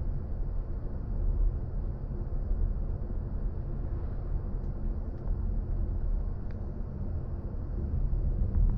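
Steady low road and tyre rumble inside the cabin of a moving BMW i4 M50, an electric car, so there is no engine note.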